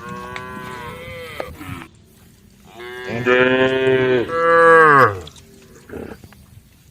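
Cattle mooing: a quieter moo in the first couple of seconds, then a long, loud moo from about three seconds in that drops in pitch as it ends.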